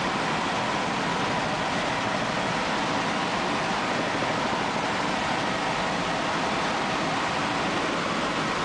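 Steady rushing noise of a helicopter in flight, heard from inside the cabin, with no changes in level.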